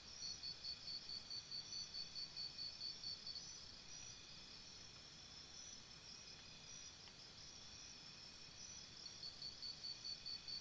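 Faint insect chirping, a cricket-like regular pulse of about four chirps a second that stops about three and a half seconds in and starts again near the end, over a steady high-pitched background hum.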